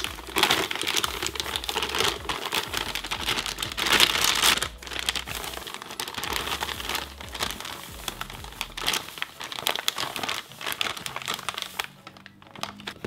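Plastic bag of powdered pancake mix crinkling as it is tipped and shaken to pour the mix into a clear plastic canister, in uneven surges, loudest about four seconds in, easing off near the end.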